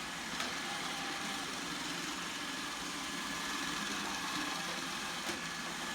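Roomba robot vacuum running with a steady whir and a faint high whine, with a couple of light clicks.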